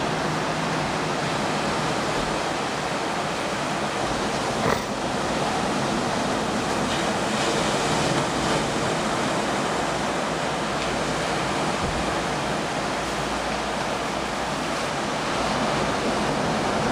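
Ocean surf breaking on the beach, heard as a steady wash of noise, with a brief light tap about five seconds in.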